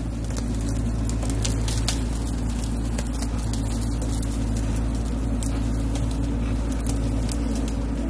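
Bobcat mini excavator's diesel engine running steadily under load while its bucket pushes into a pile of uprooted trees and brush, with scattered crackling and snapping of branches.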